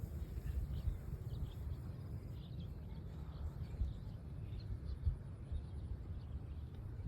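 Outdoor field ambience: a steady, uneven low rumble with faint short bird chirps scattered through it.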